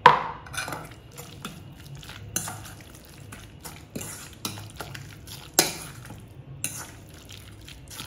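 A fork stirring shredded chicken and cabbage through thick mayonnaise-ketchup cream in a stainless steel bowl: wet, sticky mixing with the fork clinking against the metal bowl every second or so, the loudest a ringing clink right at the start. This sticky stirring sound is the one the cook listens for as the sign that the filling is creamy enough.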